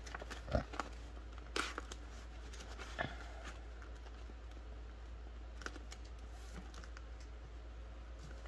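A plastic cash-envelope page in a ring-binder budget wallet being handled and turned, giving a few light crinkles and clicks in the first few seconds, then quieter handling over a steady low hum.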